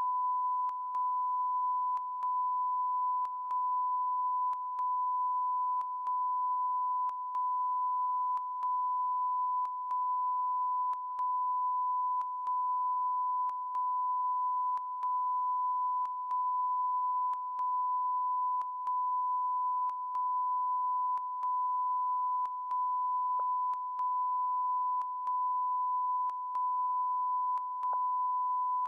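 Continuous broadcast beep: one steady, pure, fairly high tone that does not end, with a short break and click in it every second or so.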